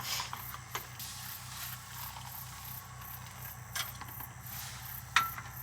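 Insects chirping steadily in very high-pitched pulses, about four a second, with a few light clicks and knocks.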